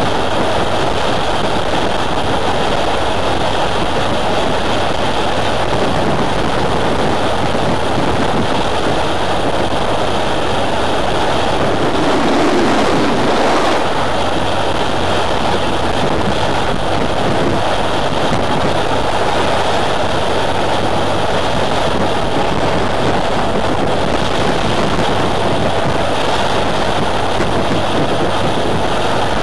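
Motorcycle cruising at a steady speed: a steady engine drone under heavy wind rush on the bike-mounted microphone. An oncoming car passes close by about 13 seconds in, a brief swell of sound.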